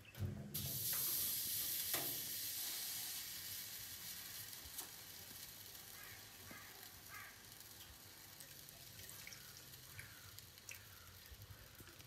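Hot oil sizzling in a brass pot on a wood stove. A sharp hiss starts about half a second in as something goes into the pot, then slowly dies down, with a few faint ticks near the end.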